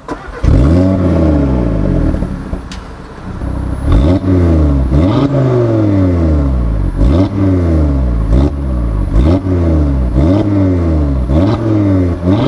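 Audi TT RS 2.5-litre turbocharged five-cylinder, model year 2020 with a petrol particulate filter, starting with a flare about half a second in. It settles, then takes a string of about eight sharp revs at standstill, each rising quickly and falling back. The sound is quite decent and quite loud, with no high rev limiter and none of the pops and bangs of earlier model years.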